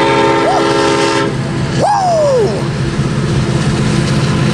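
Union Pacific 1989, an SD70ACe diesel locomotive leading a stack train: its air horn holds a chord that cuts off about a second in. The diesel engines of the lead locomotives then run on with a steady low drone as the train comes on.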